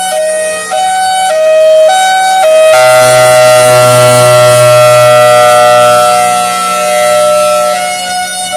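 Federal Signal Thunderbolt 1003 dual-tone siren sounding an erratic ('screwy') hi-lo signal. It alternates between two pitches about every half second, then about three seconds in locks onto both tones at once as a steady, louder chord for some five seconds. It sags slightly in pitch before falling back into the hi-lo alternation at the end.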